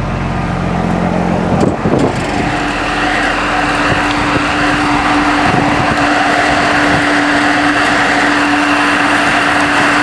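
Peterbilt truck's diesel engine idling, first a low steady hum as heard inside the cab. After a knock about two seconds in, it is heard from outside the cab as a louder, even hiss with one steady hum.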